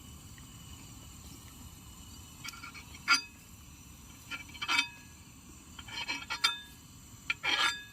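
Dishes and utensils clinking: a handful of short, sharp clinks with a brief ring, as food is served onto plates, over a steady chirr of insects.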